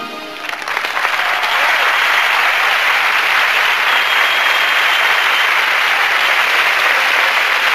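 Audience applauding at the end of a song. The music stops right at the start, and the clapping builds within the first second, then holds steady.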